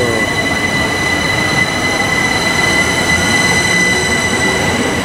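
Southeastern class 375 Electrostar electric train running along the platform: a steady, loud rumble of wheels on rail with a continuous high-pitched whine.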